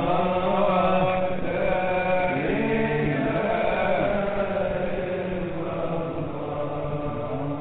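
Chanted devotional vocal music: voices sing a slow melody of long, sliding notes over steady low held notes.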